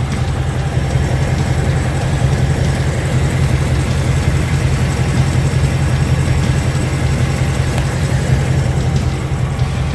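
Ford Mustang GT's 5.0 V8 idling steadily with no typewriter tick to be heard, after an oil change and Rislone engine additive.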